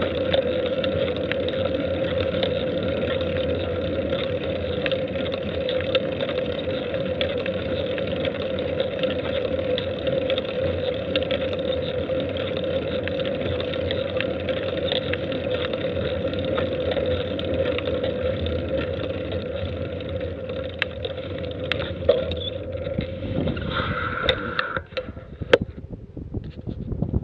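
Steady wind and rolling noise from a camera travelling along a paved road. The noise drops away near the end, leaving a few sharp clicks.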